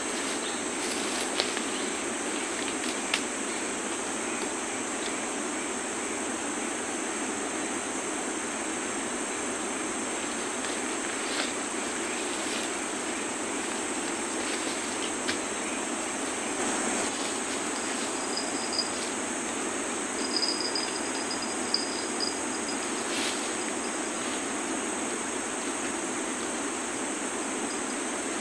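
A steady chorus of insects buzzing and chirring in tropical forest, with a few faint clicks and a brief high chirping about two-thirds of the way through.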